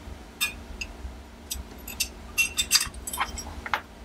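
Irregular small metallic clicks and clinks, a few a second, as the button of a Forward Controls Design EMR-A ambidextrous magazine release is turned onto its threaded catch and pressed in an AR-15 lower receiver.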